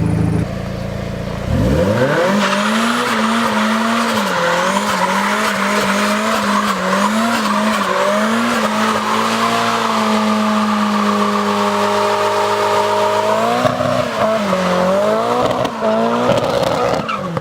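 A car doing a burnout: the engine revs up about two seconds in and is held high, its pitch wavering up and down, over continuous tyre squeal, then falls away just before the end.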